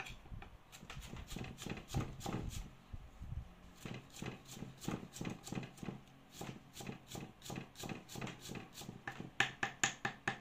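Chef's knife dicing carrot on a wooden chopping board: a steady run of quick knocks, about four a second, louder and sharper near the end.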